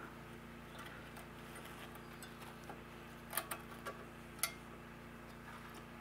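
A handful of light metallic clicks about halfway through as a new brake pad with its shim is worked into a rear brake caliper bracket by hand, over a faint steady hum.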